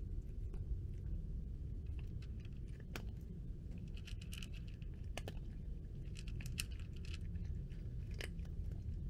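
A cat crunching dry kibble, chewing in irregular bursts of crisp crunches that come thickest through the middle, over a steady low background rumble.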